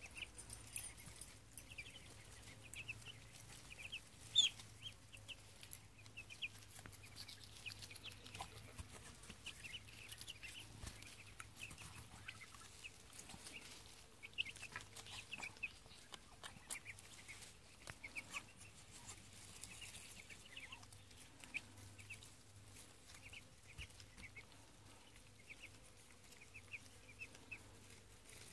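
Young chickens and ducklings peeping: many short, high cheeps, fairly faint, with a few light taps among them.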